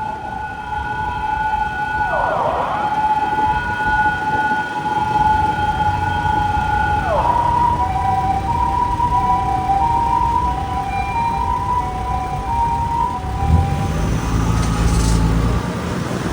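Emergency vehicle siren. It starts as a held tone that dips sharply and returns twice, then from about seven seconds in becomes a two-tone hi-lo siren alternating evenly, the pattern used by Japanese ambulances. A vehicle's engine and road noise grow louder near the end.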